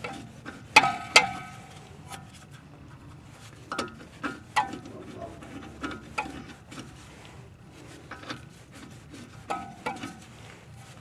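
A wrench clinking on the castle nut as it is turned down flush on the outer tie rod end's ball stud: sharp metal-on-metal clicks with a short ring. They come in small groups every second or two, the loudest pair about a second in.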